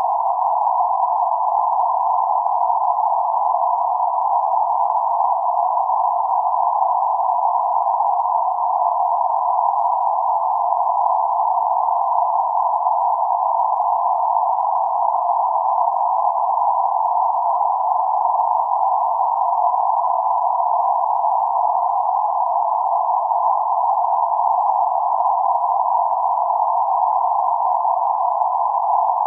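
Synthetic band-limited noise centred around 848 Hz: a steady, unchanging hiss confined to a narrow mid-pitched band, with nothing above or below it.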